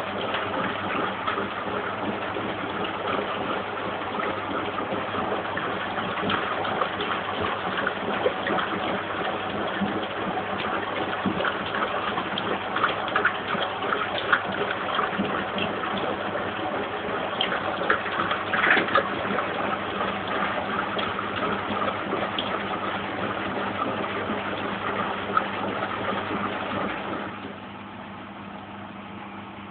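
Lynx 4TS-710A washing machine running its final rinse empty: water rushing and splashing over a steady motor hum. About 27 seconds in, the water sound stops suddenly and only a lower, steady hum is left.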